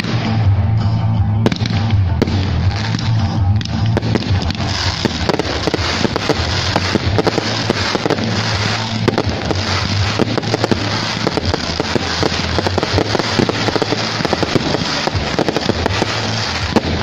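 Fireworks crackling: shells bursting into white crackling stars give a dense, rapid patter of small pops, thickening a few seconds in. Music with a steady bass plays underneath.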